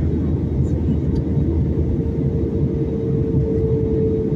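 Cabin noise inside an Airbus A320-family jet airliner in descent: a steady low rumble from the engines and airflow, with a constant hum on top that grows a little louder near the end.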